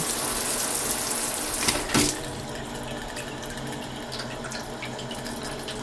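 Bathtub faucet running into the tub, a steady rush of water that drops to a softer, steadier flow about two seconds in.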